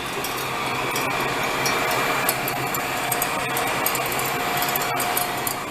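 Electric welder running steadily, a continuous crackling hiss with a faint hum underneath, as it builds up weld on the worn bearing journal of an embossing roll.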